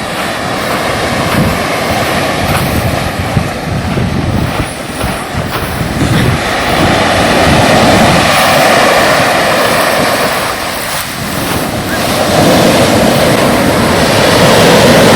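Sea waves surging and washing in, with wind buffeting the microphone; the wash swells up about halfway through and again near the end.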